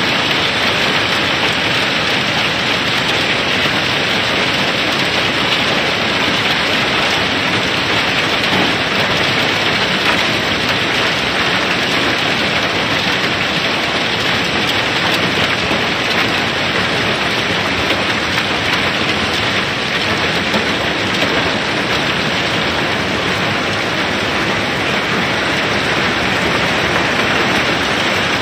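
Masses of rounded river pebbles pouring and sliding down through the unloading opening in a barge's hold, a dense, steady clatter of stone on stone.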